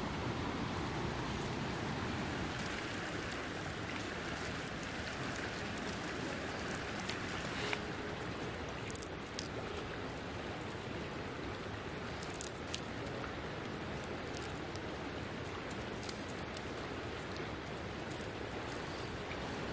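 Steady rushing outdoor ambience with scattered faint ticks and rustles.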